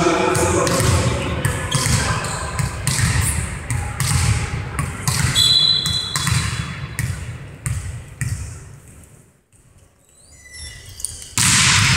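Irregular thuds of a volleyball being bounced on a sports-hall floor over general hall noise, with a short whistle about five and a half seconds in. The hall goes nearly quiet for a moment, then a sudden burst of loud noise starts just before the end.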